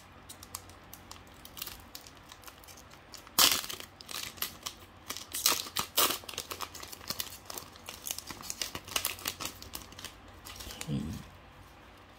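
Foil booster-pack wrapper crinkling and crackling as it is gripped and torn open by hand, in irregular sharp bursts. The loudest burst comes about three and a half seconds in, with more between five and six and a half seconds.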